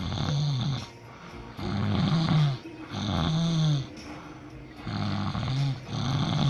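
A person's loud snoring, one rasping snore after another, about five in quick succession with short pauses between.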